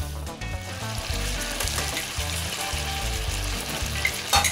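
Beef rolls searing in hot olive oil in a cast-iron Dutch oven, a steady sizzle and crackle under background music, with a sharp click near the end.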